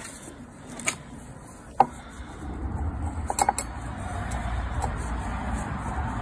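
A small metal tin of polish and its lid being handled with gloved hands while wadding is pulled out. There is a sharp metallic click a little under two seconds in and a few lighter clicks around halfway. A low rumble builds from about halfway.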